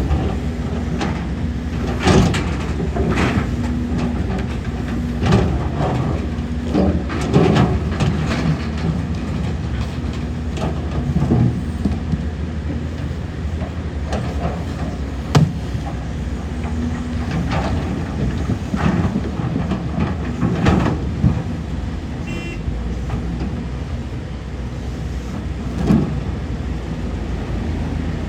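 Excavator diesel engine running steadily under work, with irregular metallic clanks and knocks of the bucket, boom and tracks. The sharpest knock comes about 15 seconds in.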